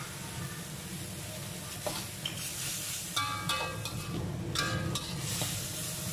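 Water spinach and garlic sizzling in a hot metal wok just after a splash of water. A metal spatula stirs and scrapes the greens, clinking sharply against the wok several times from about two seconds in.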